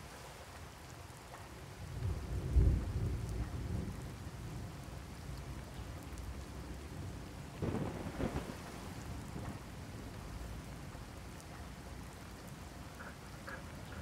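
Thunder rumbling over steady rain. A loud rumble swells about two seconds in and fades over a few seconds, and a second, shorter rumble comes about eight seconds in.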